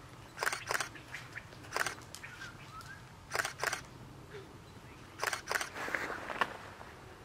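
Walking footsteps on a forest floor of fallen conifer needles and twigs. The steps come as short scuffs, mostly in pairs, every second or two.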